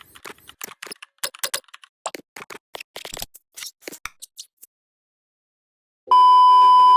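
A run of quick, irregular clicks and ticks for about four and a half seconds, then, after a short pause, a loud steady beep tone starting about six seconds in.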